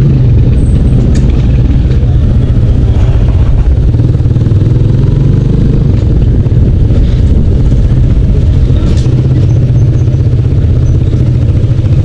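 Small motorcycle's engine running steadily at low road speed, heard from the rider's seat as a loud, even hum.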